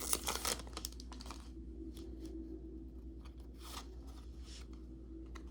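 Foil booster-pack wrapper crinkling and tearing open in the first half-second, followed by faint scattered ticks of the wrapper and cards being handled, over a low steady hum.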